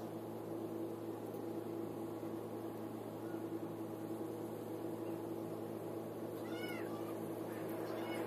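Steady low mechanical hum throughout, with a quick run of short, high, squeaky pitched calls about six and a half seconds in.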